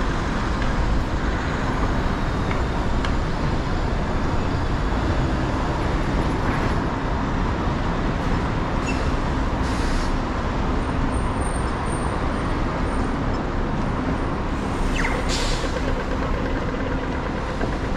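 City street traffic with buses and cars running at an intersection, a steady noise with a low hum under it. Short hisses of bus air brakes come about ten seconds in and again about fifteen seconds in.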